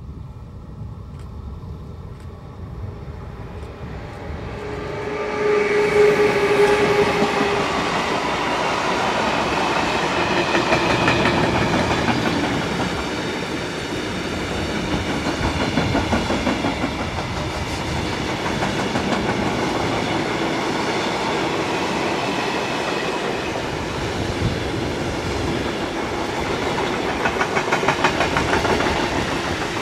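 DB class 189 electric freight locomotive approaching and passing, followed by a long freight train of tank and flat wagons rolling by with steady wheel-on-rail rumble and clatter. The sound swells over the first six seconds, with a short steady tone about five seconds in, and the wheel clatter becomes more rhythmic near the end.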